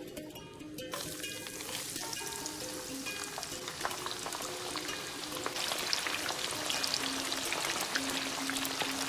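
Starch-coated chicken feet deep-frying in hot oil in a wok: a dense sizzle full of small crackles that starts about a second in and grows louder about halfway through.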